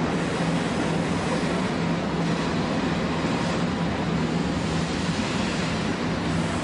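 Shin-Keisei 200 series nose-suspended-motor electric train running, heard from the driver's cab: a steady rush of wheel and track noise with a constant low motor hum underneath.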